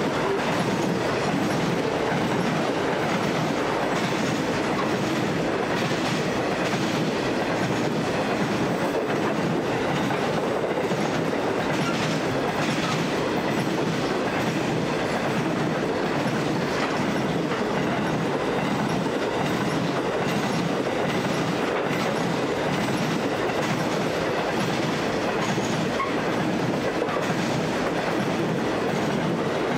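Loaded grain hopper wagons of a long freight train rolling steadily along the track, a continuous rumble of steel wheels on rail with an occasional wheel click.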